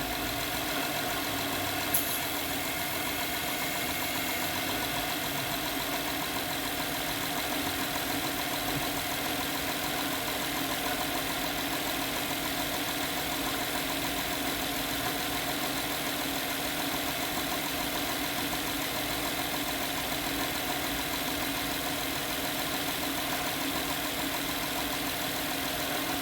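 Honda Pilot's 3.5-litre V6 engine idling steadily, with a single sharp click about two seconds in.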